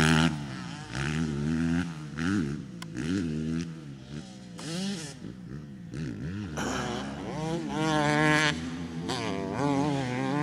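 Motocross dirt bike engines revving, their pitch rising and falling again and again with the throttle. About two-thirds of the way in a bike grows louder and revs up hard.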